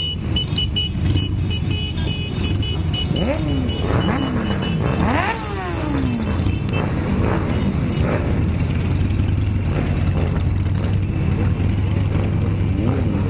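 Motorcycle engines of a large group ride rolling along in city traffic: a steady low engine rumble, with several nearby bikes revving up and back down a few seconds in.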